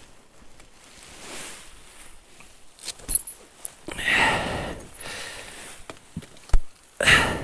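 Outdoor handling noises: footsteps and rustling of gear, with a few sharp clicks and knocks and two longer rustling bursts, one about four seconds in and one near the end.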